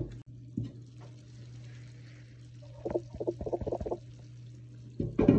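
Glazed clay tagine lid knocking and scraping against its earthenware base: a sharp knock at the start, a rattling clatter about three seconds in as the lid is lifted, and another knock near the end, over a steady low hum.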